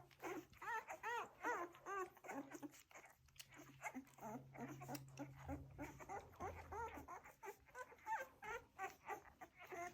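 Welsh Springer Spaniel puppies whimpering while nursing: many short high squeaks that rise and fall, two to four a second, overlapping.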